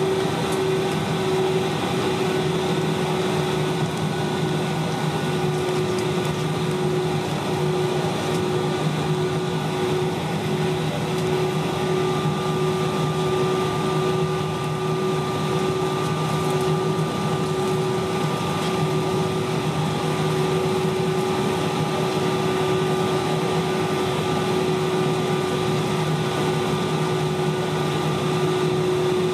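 Airbus A320's IAE V2500 turbofan engines at idle thrust while taxiing, heard from inside the cabin over the wing. A steady hum with a constant whine, mixed with cabin air noise.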